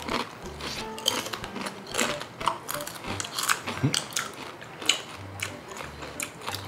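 Tortilla chips crunching as they are chewed: irregular crisp cracks, about three a second.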